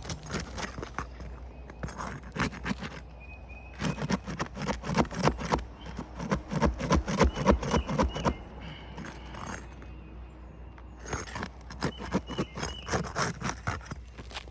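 Asphalt roof shingle being pried and worked loose: bursts of rapid crackling and scraping, with loose granules skittering off as the tabs break free. The granules shedding this readily is the granule loss that comes with breaking the sealed tabs.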